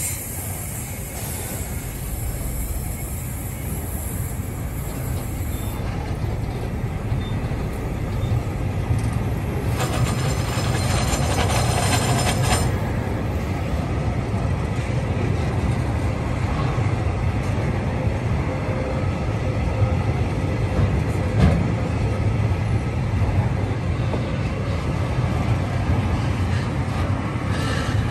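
Loaded log wagons of a freight train rolling past at close range, a steady low rumble of steel wheels on the rails. About ten seconds in, higher-pitched wheel noise rises for two or three seconds, and a single louder knock comes a little past twenty seconds.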